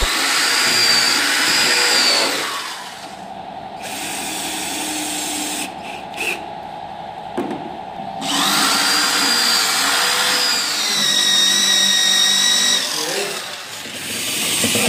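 Handheld electric drill with a thin twist bit boring holes into white board, the motor whining at full speed. It drops to a slower, quieter run after about two seconds and speeds up again about eight seconds in.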